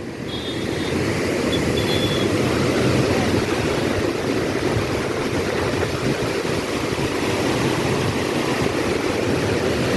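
Water from the Jurala dam's released gates rushing and pouring steadily in a continuous loud wash.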